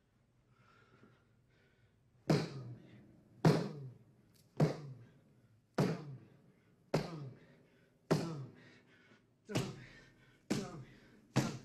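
A man's fists punching a concrete jail-cell wall again and again: nine heavy thuds at a little over one a second, starting about two seconds in, each with a short ringing tail.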